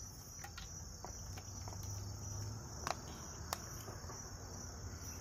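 Crickets chirping in a steady, continuous high trill, with two faint clicks about three seconds in.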